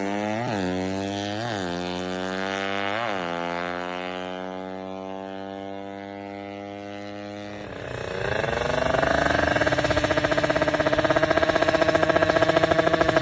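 Four-stroke Suzuki Satria FU motorcycle engine, bored out to 200cc for drag racing: three quick throttle blips in the first three seconds, then the revs sag slowly toward idle. About eight seconds in the revs pick up again and it runs louder at a steady, faster pitch.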